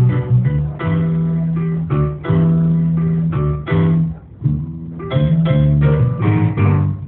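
A small band playing live on electric guitar and electric keyboard. A prominent bass line moves in separate plucked notes under the chords, with a short dip in loudness about four and a half seconds in.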